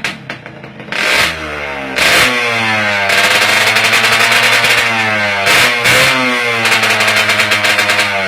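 Kawasaki Leo Star motorcycle engine being revved over and over, its pitch rising and falling. There are two sharp blips about one and two seconds in, then a long loud stretch of revs with a rapid crackling rattle running through it.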